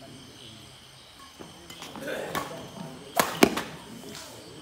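Badminton rackets striking a shuttlecock in a doubles rally: a series of sharp pops, the loudest a quick pair about three seconds in. Spectators' voices are heard briefly in the middle.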